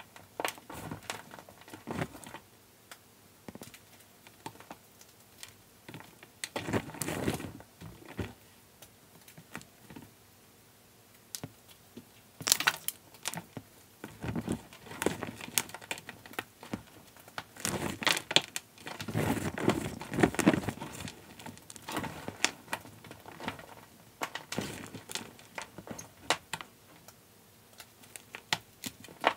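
Reformed gym chalk mixed with cornstarch crunching and crumbling as hands squeeze and break up the chunks, sped up to double speed. It comes in irregular bursts of dense crackly crunches with short pauses between squeezes.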